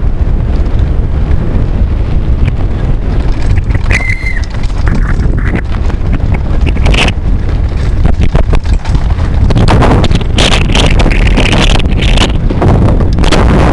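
Wind buffeting a helmet-mounted camera's microphone as a downhill mountain bike runs fast down a rough trail, with many knocks and rattles from the bike going over bumps. A short high squeal comes about four seconds in.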